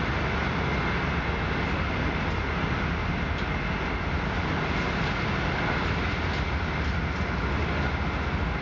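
Steady running noise inside a passenger train carriage travelling at speed: wheels rolling on the rails with a low rumble, plus a faint high whine.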